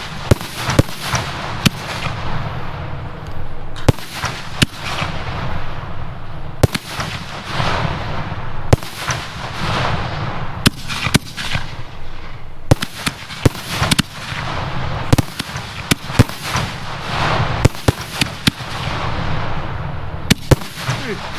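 8-inch Grim Reaper aerial shells going off one after another, each bursting in a hard, loud bang. Dozens of sharp reports come at uneven spacing, sometimes several within a second, over a continuous rumble and crackle of echoes and further shells.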